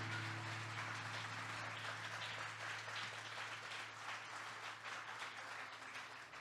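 Audience applauding after a piece ends, the clapping slowly thinning out, over a low steady hum.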